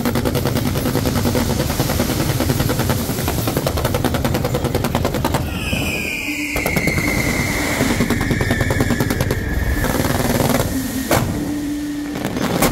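Aerial fireworks and firecrackers going off in dense, rapid crackling volleys. About five and a half seconds in, a long whistle rises over the crackle and slowly falls in pitch for about four seconds, and a few single sharp bangs follow near the end.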